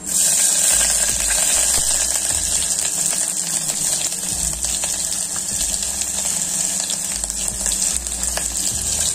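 Sliced onion dropped into hot oil and ghee in a pressure cooker, sizzling as it fries. The sizzle starts suddenly as the onion goes in and then holds steady.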